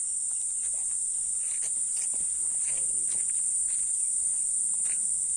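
Insect chorus, a steady high-pitched drone of crickets or cicadas, with a few faint short sounds beneath it.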